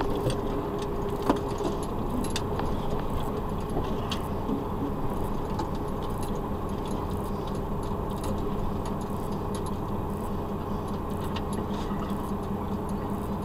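Truck's diesel engine running low and steady, heard inside the cab as the truck rolls slowly over rough dirt, with light rattling and clicking from the cab and one sharper click about a second in.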